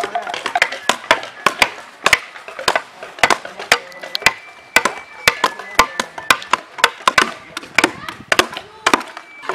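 Long-bladed knives chopping into wooden blocks: a quick, irregular run of sharp wooden chops, several people hacking at once, some louder and closer than others, with voices in the background.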